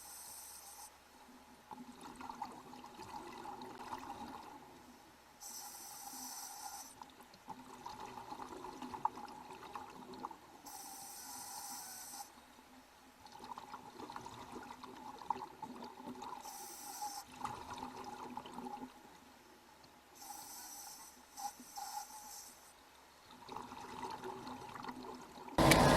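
Scuba diver breathing underwater through a regulator: a hissing inhale about every five seconds, with bubbling exhales in between.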